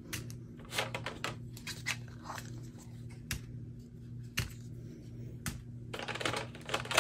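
Small plastic bags of diamond-painting drills being picked up, shuffled and set down: scattered light clicks and crinkles of plastic, turning into a denser rustle about six seconds in.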